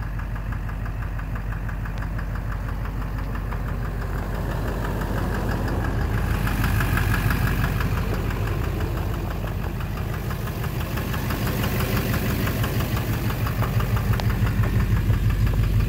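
Duramax LMM 6.6-litre V8 turbodiesel running under way with a rapid, even knock over the engine note, getting louder about halfway through and again near the end. The knock is one the owner calls worse now and later suspects is in the bottom end.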